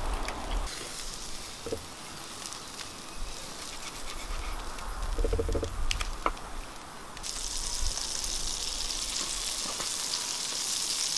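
Food starting to sizzle in a frying pan on a wood-burning firebox stove about seven seconds in, a steady frying hiss. Before it, light clicks and knocks of utensils, and a brief whining sound about five seconds in.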